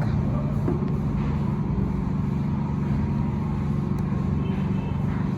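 A steady low mechanical hum, like a motor or engine running in the background, with one faint click about four seconds in.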